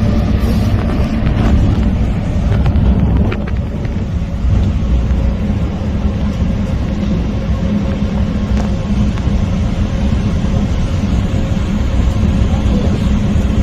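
Sillim Line rubber-tyred light-rail train running between stations, heard from inside the carriage: a steady rumble with a constant low hum.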